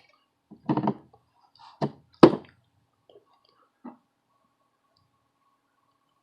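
Small tools being handled and set down on a workbench during circuit-board soldering: a few light knocks, the loudest a sharp tap about two seconds in. After that only a faint steady whine.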